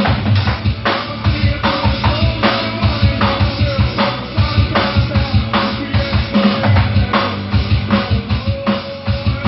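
Drum kit playing a steady beat of bass drum and snare along to a recorded worship song, with a held melodic tone from the backing music.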